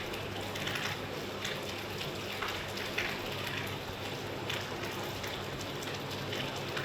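Steady rain falling, a dense patter with many individual drops ticking out of it.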